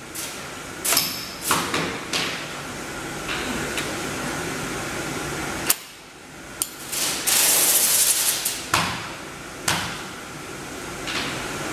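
Aluminium snap-frame poster frame being closed: the hinged edge profiles give a series of sharp snaps, about seven or eight spread out. A little past halfway comes a longer rustle from the clear plastic cover sheet being pressed flat.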